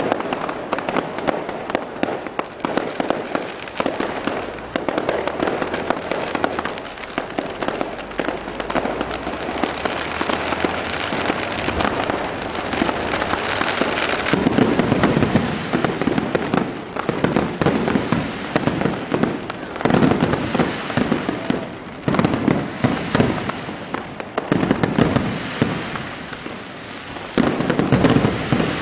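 Fireworks display: a continuous rapid crackle of many overlapping bangs and pops, growing louder and heavier about halfway through.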